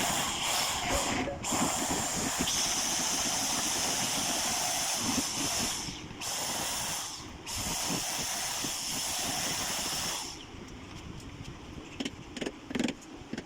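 A steady hiss that stops briefly three times and cuts off about ten seconds in, followed by a few light clicks.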